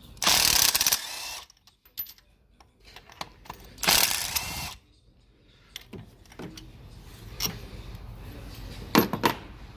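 Socket ratchet clicking in two short runs, one at the start and one about four seconds in, as the spark plugs are undone, followed by a few lighter clicks and knocks of tools.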